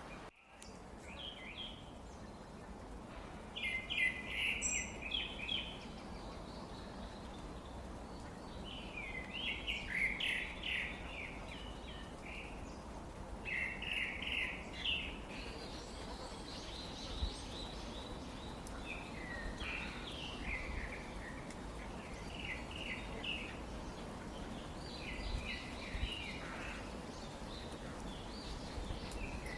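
Birds chirping in short bursts of quick notes every few seconds, over a steady low background hiss.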